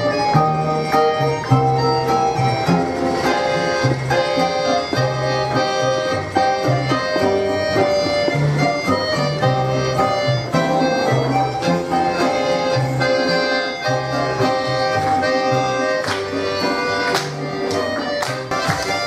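Accordion playing a lively Russian folk dance tune, with held chords over a stepping bass line. Near the end a run of sharp percussive hits joins in.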